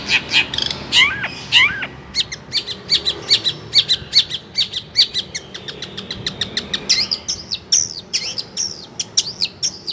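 Long-tailed shrike (cendet) singing: a fast, unbroken stream of short chirps and whistled sweeping notes, several a second.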